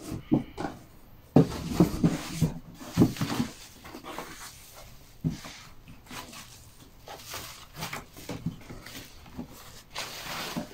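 Cardboard box and white plastic wrapping being handled and pulled apart: irregular rustles and soft knocks, the loudest in the first few seconds, with a brighter rustle of the wrapping near the end.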